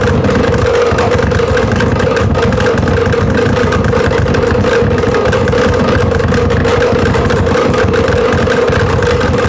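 A noise box putting out a steady, rough, engine-like drone: a held mid-pitched tone over a crackling rumble, unchanging throughout.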